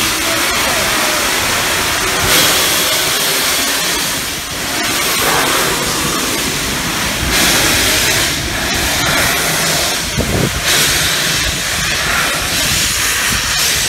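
Steam locomotive Flying Scotsman, an LNER A3 Pacific, pulling out of a station, with loud steam hissing that comes in long surges of a few seconds each.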